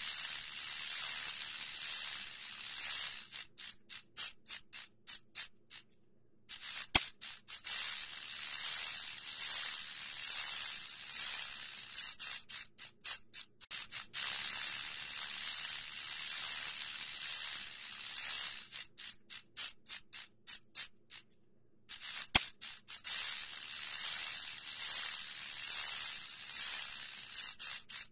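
Rattlesnake's tail rattle buzzing in a continuous high hiss, then slowing into separate clicks and stopping. The cycle comes round about four times, with short silences between.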